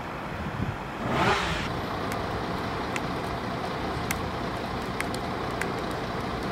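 Steady low rumble of road traffic, with a brief swish of noise about a second in and a few faint clicks.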